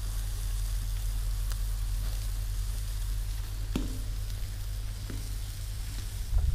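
Sausages and chicken sizzling steadily on a grill grate over a campfire, with a few short clicks of metal tongs against the grate.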